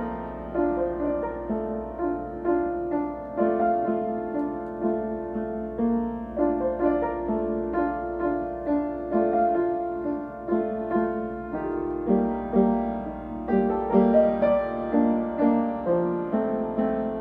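Solo piano piece: melody notes over chords, struck in a steady, even pulse with a faint low hum underneath.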